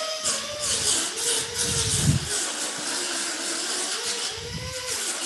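Small rotary grinder or sander running against a plastic headlight tab, its whine dipping and wavering as it is pressed on, with heavier rumbling contact about two seconds in and again near the end: grinding off weld slag and smoothing the repair.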